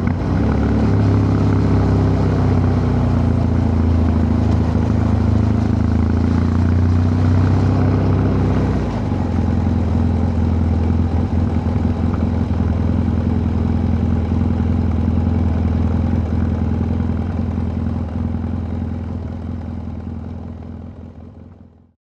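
BMW F 800 GS parallel-twin engine running steadily on its original exhaust, its note shifting lower about nine seconds in. The sound then fades away over the last few seconds.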